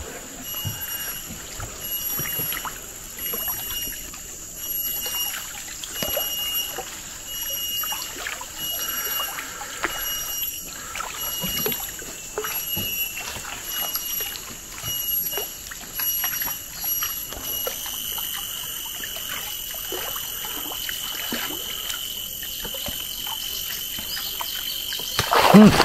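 Cicadas (kereriang) singing: a high, steady drone with shorter whining notes pulsing about once a second, changing late on to one continuous whine. Beneath it, canoe paddle strokes and water trickling.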